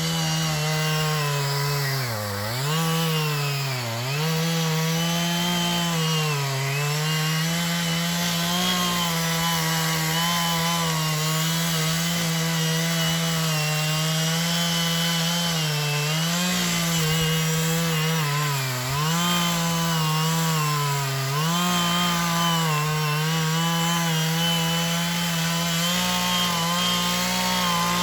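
Two-stroke chainsaw running at full throttle while cutting into a tree. Its engine pitch dips briefly several times as the chain bites into the wood and the engine comes under load, then it recovers.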